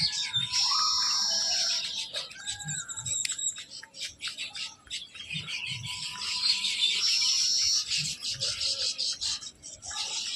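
Many small birds chirping rapidly and continuously, with stretches of a steady high trill about a second in and again around seven seconds.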